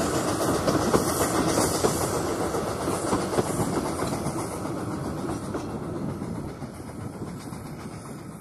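Narrow-gauge passenger coaches rolling past on the track, wheels clattering on the rails, the sound fading steadily as the train moves away.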